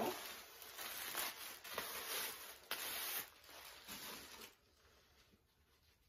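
Rustling and crinkling of tissue-paper wrapping and a silk scarf being handled as fingers work at the scarf's knot, dying away about four and a half seconds in.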